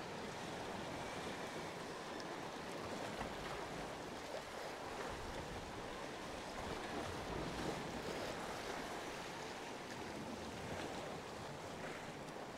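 Steady wash of choppy sea water, with some wind rumble on the microphone.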